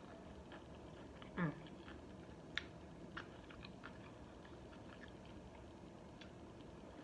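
Faint close-up chewing of a fried chicken sandwich, with scattered wet mouth clicks. About a second and a half in comes a brief, louder sound that slides down in pitch.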